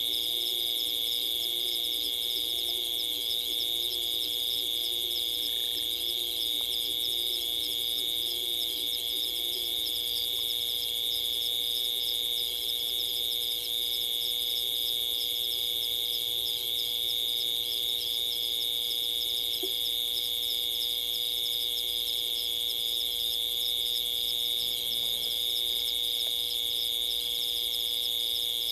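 Night chorus of insects: a steady, high-pitched trilling with a faster pulsing layer above it. For the first ten seconds a lower call rises and falls about once a second, then stops.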